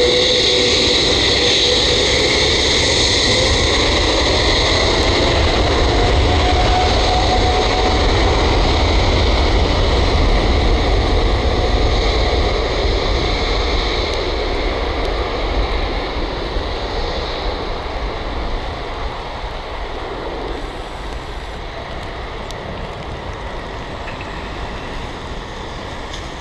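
Boeing 787-8 Dreamliner's Rolls-Royce Trent 1000 turbofans at high thrust as it accelerates down the runway: a loud, deep rumble with a whining tone that rises in pitch over the first several seconds. The sound fades steadily over the second half as the jet moves away.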